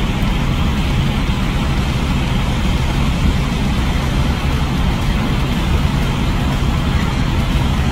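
Semi-truck diesel engine idling: a steady low rumble with a constant hum.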